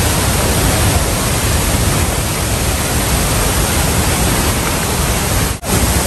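Steady loud rush of a tall waterfall plunging into its pool. The sound cuts out for an instant near the end.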